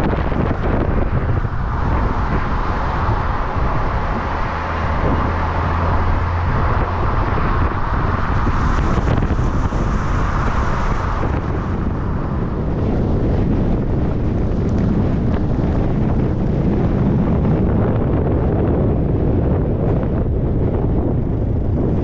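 A vehicle being driven: steady engine and road noise, with wind buffeting the microphone.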